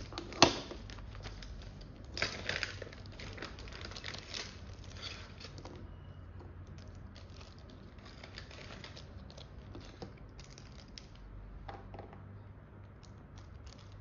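Small plastic parts bag crinkling and small screws and fittings clicking and tapping as they are handled on a bench, with a sharp knock about half a second in.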